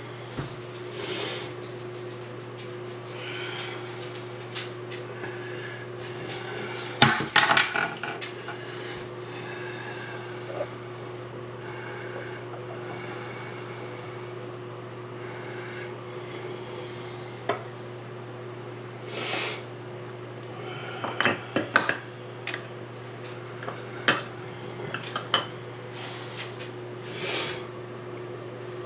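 Metal tools and faucet parts clinking and knocking during work on a bathroom sink faucet, in scattered bursts with the busiest clatter about a quarter of the way in and again past the middle, over a steady low hum.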